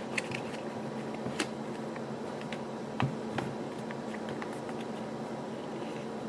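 A few faint plastic clicks and taps from handling a smartphone while its back cover is being opened, over a steady low room hum.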